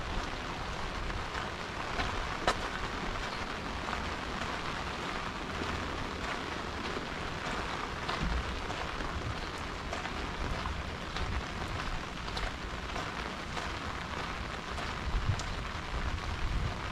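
Steady rain falling, with a few sharp drop ticks standing out here and there.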